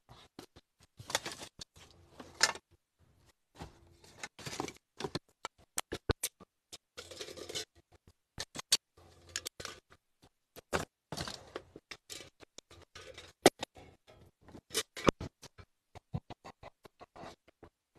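Irregular clicks, taps and short scuffing noises scattered through, the handling noise of a phone camera being picked up and carried.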